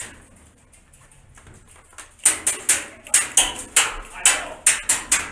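Airsoft rifle firing a rapid string of single shots, about three or four a second, from about two seconds in. The shots are fired inside a steel shipping container.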